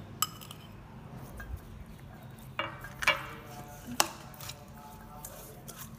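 A metal spoon knocking and clinking against a stainless-steel bowl while a marinated chicken is turned in it: a few scattered knocks with a short ring, the loudest ones about two and a half, three and four seconds in.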